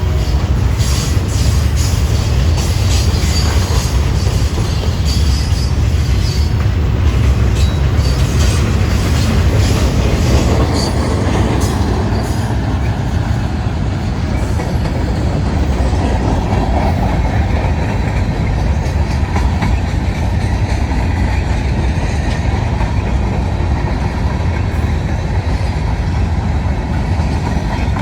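Arizona Eastern Railway freight train passing: a steady, heavy rumble of wheels on rails. Through the first ten seconds or so there is added clicking and a faint high wheel squeal, which then fade, leaving the rumble.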